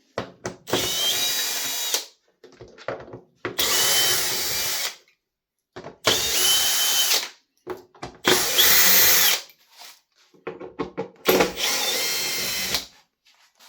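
Cordless drill running in five short bursts of about a second and a half each, backing out the bolts that hold a leaf blower's side cover. Each burst has a steady whine, and there are light clicks between them.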